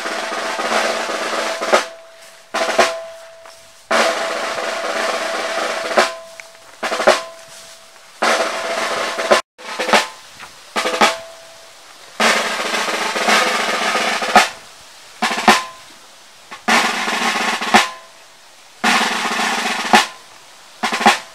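Snare drum playing a series of rolls, each one to two seconds long, several closed with a single sharp stroke, with short pauses between them.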